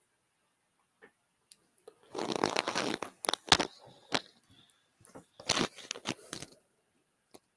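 Rustling, crunching handling noise with a few sharp clicks, in two bursts: one about two seconds in and another about five seconds in.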